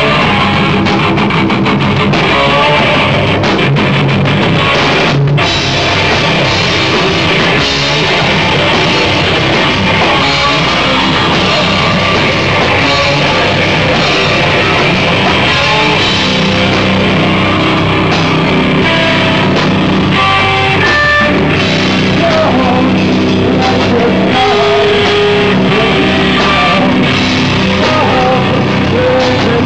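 A rock band playing loudly live: electric guitar through a Marshall amplifier and a drum kit with crashing cymbals, with a voice singing into the microphone at times.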